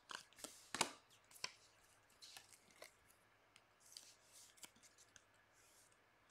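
Faint handling of trading cards and a rigid clear plastic top loader: scattered light clicks and taps, the sharpest a little under a second in, with soft sliding swishes of card against plastic.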